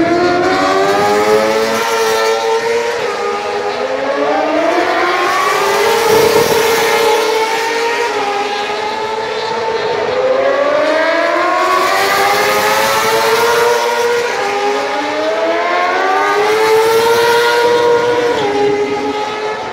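MotoGP racing motorcycles' 1000cc four-cylinder engines accelerating hard as several bikes pass in turn: loud, high-revving notes that climb repeatedly, each drop in pitch an upshift, with the notes of different bikes overlapping.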